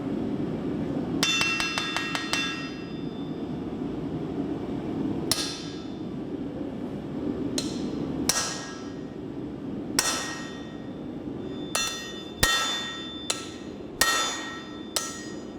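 Axes used as forging hammers striking a hot steel billet on an anvil, each blow ringing with a metallic tone. A quick flurry of blows comes about a second in, then single strikes every second or two, coming faster near the end, over a steady low rumble.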